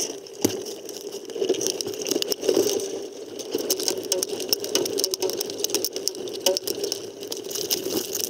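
Steady wind and water noise on the boat-mounted camera, broken throughout by many sharp clicks and rattles from the small racing catamaran's rigging and deck fittings as it sits in the shallows.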